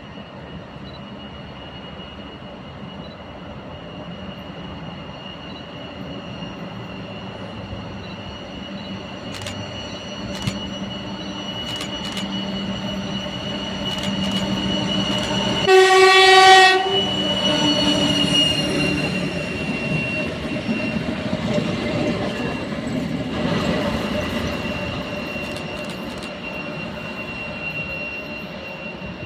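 2TE116 diesel locomotives approaching and passing, their turbochargers giving a steady high whistle over the engine noise that grows louder as they come closer. About halfway through there is one loud horn blast of about a second, and the whistle then drops in pitch as the locomotives go by.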